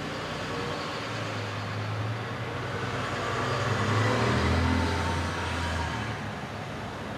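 Hot air rework station blowing a steady hiss of hot air onto a circuit board to melt the solder under a stuck transistor, with a low hum that swells about four seconds in.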